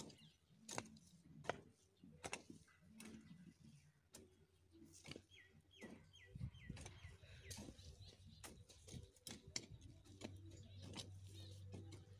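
Faint, irregular knocks of hand hoes chopping into soil while weeding maize. A bird chirps a quick run of short notes about five seconds in.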